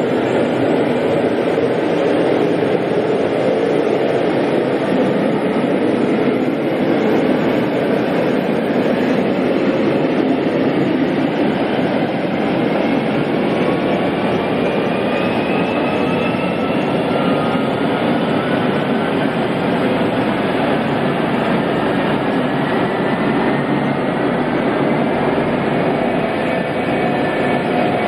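J79-11B turbojet running on a test stand: a steady, loud jet roar. A high whine climbs in pitch over the first ten seconds, and from about twelve seconds in several whining tones slowly rise in pitch as the engine speeds up.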